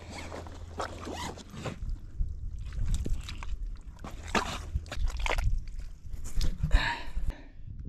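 Irregular rustling and scraping footsteps, as of someone moving through dry brush and scrub.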